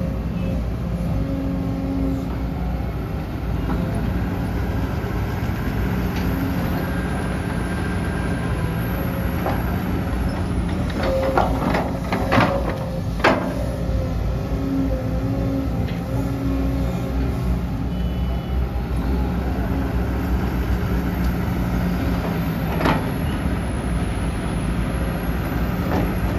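Sumitomo SH250-6 hydraulic excavator's diesel engine running steadily as it digs, with a cluster of sharp knocks around the middle and two more single knocks near the end as the bucket works through rocky soil.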